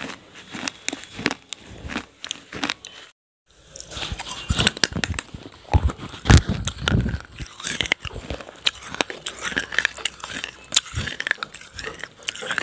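Close-miked crunching and crackling of clay pots coated in sauce: clay being chewed, then, after a moment of silence about three seconds in, fingers cracking and crushing the pots, with a few heavier thuds near the middle.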